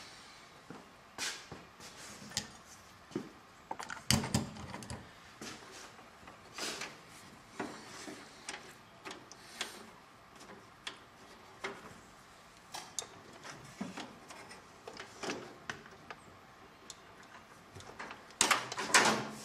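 Irregular clicks, taps and rustles of hands and pliers working on car wiring, with a louder cluster about four seconds in. Near the end, a loud burst of clothing brushing against the microphone.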